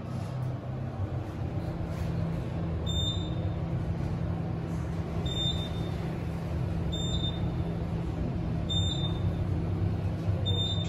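Otis Gen2 traction elevator car travelling up: a steady low hum and rumble of the moving cab, with a faint short high beep about every two seconds as the car passes each floor.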